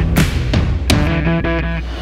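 Background rock music led by guitar, with sharp drum strikes keeping the beat.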